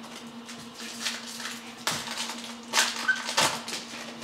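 Stiff chrome trading cards being handled and slid one behind another, a few short scrapes and clicks about a second apart, over a steady low hum.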